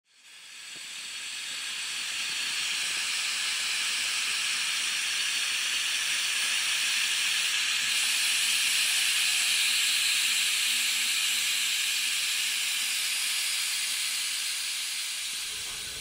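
A steady hiss, strongest in the upper range, that fades in over the first two seconds and fades out near the end.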